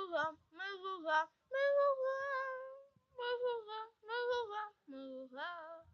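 A child singing a song unaccompanied, in short phrases with a few held notes, with a mouthful of sunflower seeds as part of a singing challenge. The singing stops near the end.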